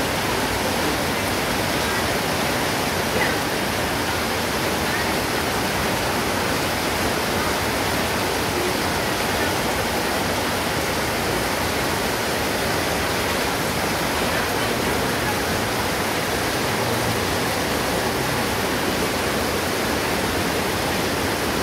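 Heavy tropical rain pouring down steadily, an even unbroken hiss of water.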